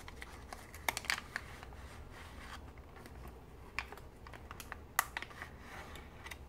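A small cardboard box being opened by hand, its inner tray sliding out of the sleeve: light scrapes of card with scattered sharp clicks, the sharpest about five seconds in.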